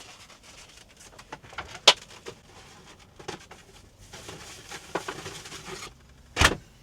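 Leftover food containers being packed into a crowded van fridge: rustling with small clicks and knocks, a sharp click about two seconds in and a louder knock near the end.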